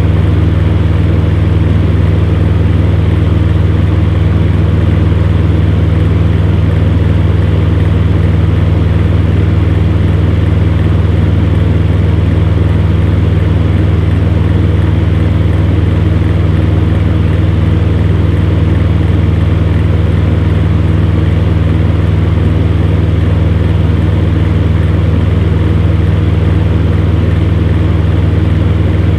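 Electric fan heater running steadily: a low, even motor hum under the constant rush of blown air.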